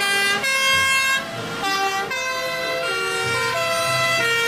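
Two-tone sirens of several fire engines, each switching back and forth between a high and a low note about every half second and overlapping with one another.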